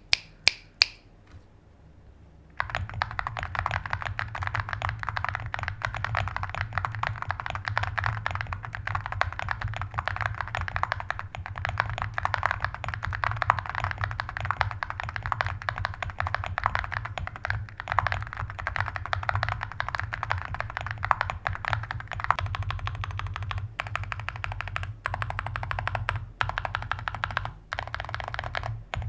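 Typing sound test on a QK75 mechanical keyboard with full metal keycaps, Ktechs S2 Snow linear switches, a POM plate and full foam. A dense, fast stream of keystrokes starts about two and a half seconds in and thins to separate key presses near the end.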